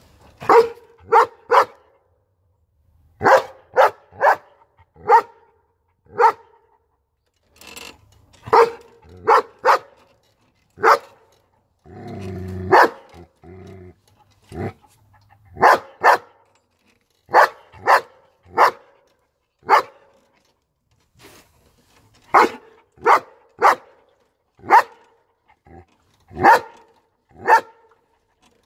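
Young long-coated German Shepherd barking repeatedly at close range, in short barks that come singly or in quick runs of two to four, with pauses of a second or two between runs.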